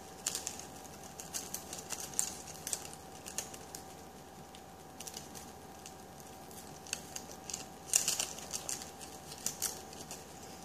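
Slit-cut paper card being pulled and spread open by hand: irregular crackles and crinkles of the paper, in clusters near the start and again near the end, over a faint steady hum.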